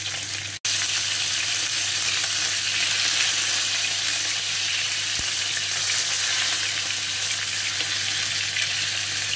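Bacon-wrapped beef fillet steaks sizzling steadily as they sear in a very hot pan, turned with tongs to sear their sides. The sizzle cuts out for an instant just under a second in.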